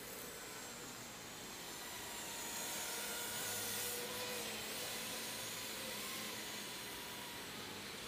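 A Realacc KT100 micro FPV quadcopter's DYS 1104 4000kv brushless motors with Gemfan 3025 props whining as it flies past. The whine glides up and down, swells to its loudest about four seconds in and then eases off, over a steady hiss.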